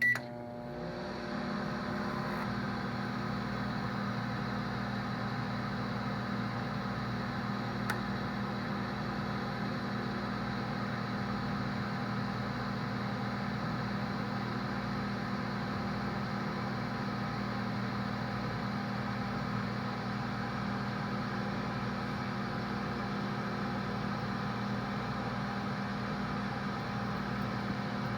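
Microwave oven running: a short beep at the start, then the oven's hum and fan whir come up within about a second and run on steady with a low electrical drone.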